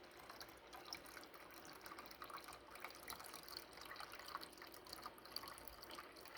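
Faint trickling of water being poured slowly into a mug, with scattered small drips.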